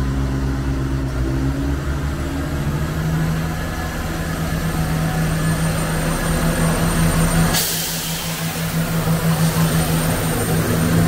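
Class 170 Turbostar diesel multiple unit's underfloor engines running, their low drone rising in pitch a couple of seconds in as they are throttled up. About three quarters of the way through comes a sudden loud hiss of air that carries on under the engine throb.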